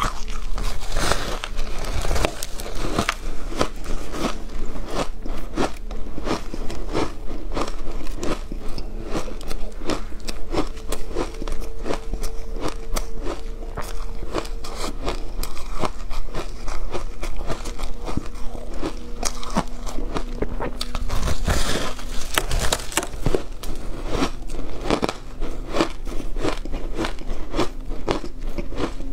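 Close-miked biting and chewing of packed shaved ice dusted with matcha powder: a rapid, continuous run of crunches.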